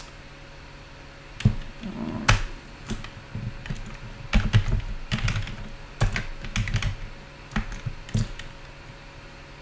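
Typing on a computer keyboard: a run of irregular keystrokes starting about a second and a half in and stopping shortly before the end.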